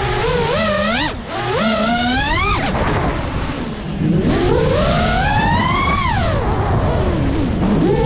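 Brushless motors of a GEPRC Mark5 FPV quadcopter whining, their pitch swooping up and down with the throttle. There is a brief dip about a second in and a softer lull around three seconds in, then a long climb in pitch that falls away near the end.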